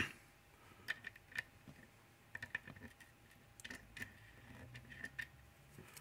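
Faint, scattered light clicks and taps of a magnetic cam lock and its key being handled and set up in a lock vise.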